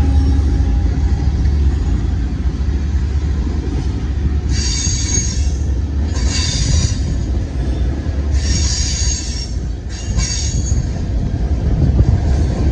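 Freight train rolling slowly past. A locomotive's engine hum fades in the first second, leaving the steady low rumble of tank cars on the rails. Four short bursts of high-pitched wheel squeal come in the second half.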